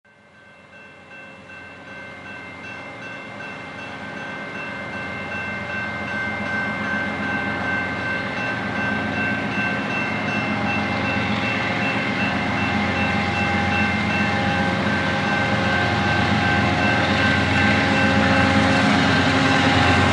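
Train running, growing steadily louder, with a low engine drone and several steady high tones held over it.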